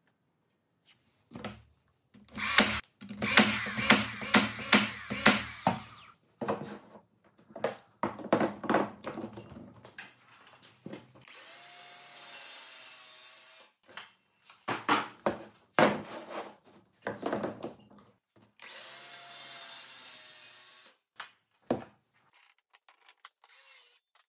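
A cordless DeWalt circular saw spinning up and cutting plywood along a straight-edge jig, twice, the first cut about three seconds long and the second about two. Before and between the cuts come louder clusters of short power-tool bursts and knocks.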